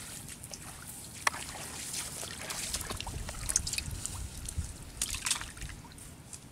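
Water sloshing and splashing in a metal pot crowded with small live fish, with a few short sharp splashes, the loudest about a second in.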